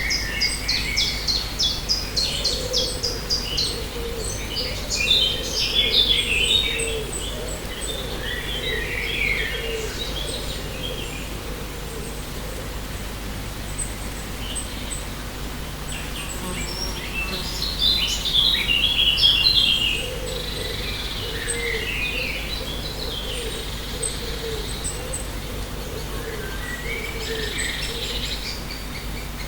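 Forest ambience of several wild birds singing and chirping. It opens with a rapid run of repeated high notes, then gives bursts of song about a third of the way in and again about two thirds through, over steady low background noise.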